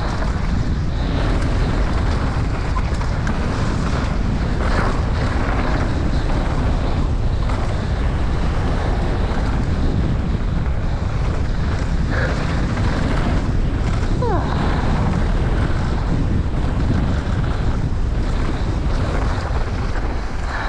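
Wind buffeting the rider-mounted camera microphone during a fast downhill mountain bike descent, a loud, steady rushing noise. A brief falling squeak comes about two-thirds of the way in.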